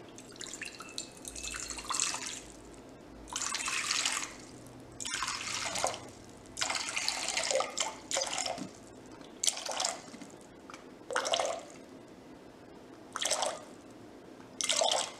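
Filtered water poured into a glass mixing bowl in about eight separate splashing pours, the later ones briefer as the weight nears the 400-gram target.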